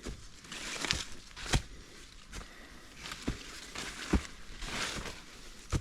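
Footsteps climbing a steep dirt mountain trail: irregularly spaced thuds and scuffs, with scraping noise between steps.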